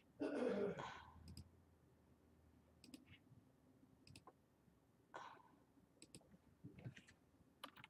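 Faint, scattered clicks of a computer mouse and keyboard, a few at a time, with a short breathy rush of noise about a quarter of a second in.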